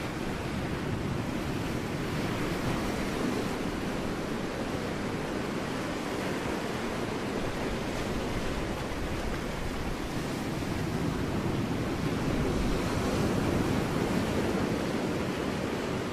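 Ocean waves breaking on rocks: a continuous wash of surf, swelling a little a few seconds in and again toward the end.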